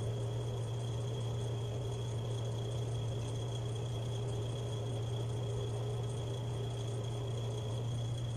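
Steady low hum, unbroken, with a fainter steady high whine above it.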